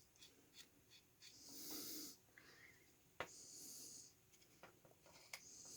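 Faint, slow breathing through the nose, a few breaths, with a few small sharp clicks from a small Phillips screwdriver working a tiny screw inside a computer mouse.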